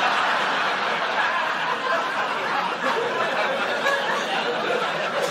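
Audience laughing together, a steady wash of crowd laughter in a room.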